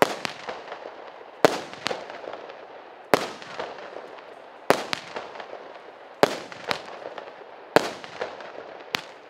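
A 19-shot, 0.8-inch firework cake (Russian Fireworks P7220 'Russkiy Suvenir') firing one shot about every second and a half. Each is a sharp launch bang, then a smaller burst pop about half a second later, trailing off in a hiss of sparks.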